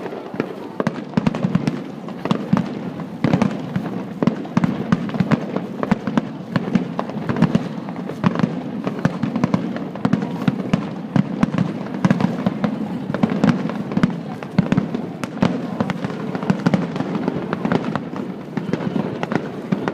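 Fireworks display: a rapid, unbroken string of bangs and crackles from bursting shells, several a second.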